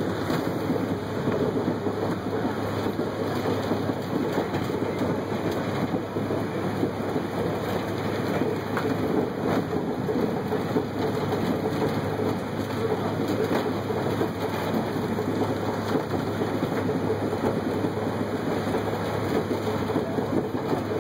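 Mount Washington Cog Railway train running, heard from aboard: a steady, continuous rattle and rumble of the coach and its drive, with a low hum underneath.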